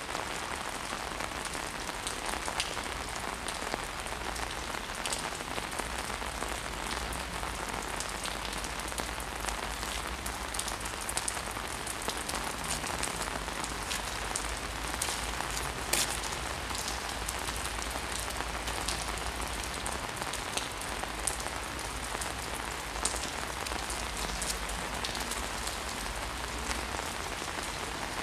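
Steady rain falling on wet pavement, with scattered individual drops ticking.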